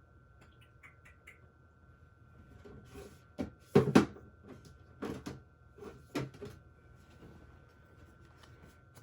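Objects being handled and set down: a few scattered knocks and clatters, the loudest a quick pair about four seconds in, then two more a second or so apart.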